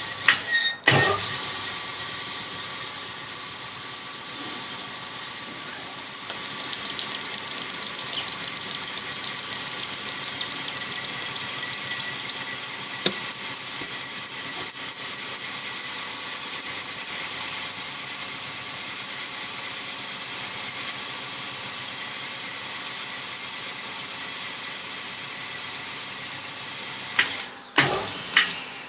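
Power-driven cylinder hone running in a bore of a Perkins 248 block, its stones rubbing the cylinder wall with a steady hiss and high whine, taking the last fraction of a thou off the bottom of the bore. It gets louder about six seconds in and stops shortly before the end.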